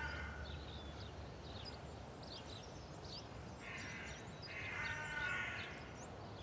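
A crow cawing three times, once at the start and twice about four and five seconds in, over faint high chirping of small birds.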